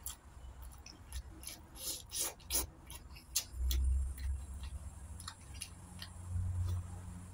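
Close-up eating sounds: chewing and sharp lip-smacking clicks, scattered irregularly, as rice and sardines are eaten by hand. A low rumble swells about three and a half seconds in and again near the end.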